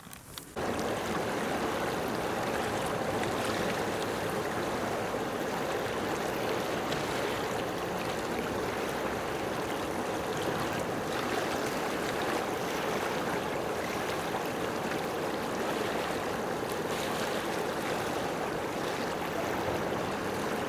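Steady rushing noise of running water, starting abruptly about half a second in and holding even throughout.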